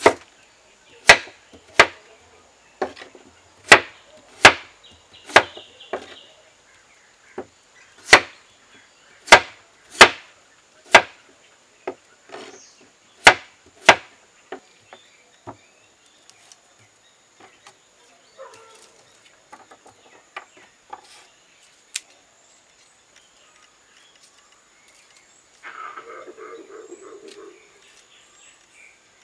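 Kitchen knife cutting raw potatoes into wedges on a wooden chopping board: sharp knocks of the blade on the board, roughly one a second for the first fourteen seconds, then only a few scattered ones. A faint steady high-pitched tone runs underneath.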